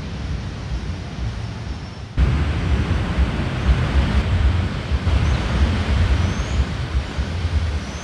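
Wind buffeting the camera microphone over a steady rushing hiss, with a few faint high chirps. The sound gets suddenly louder about two seconds in.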